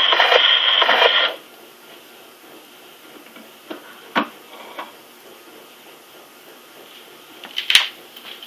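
An acoustic 78 rpm record of tenor voice and orchestra playing through a Sonora Trovatore phonograph, with a held final chord and the thin, treble-less sound of an old disc. It stops abruptly about a second in, leaving faint hiss broken by a few scattered clicks and knocks.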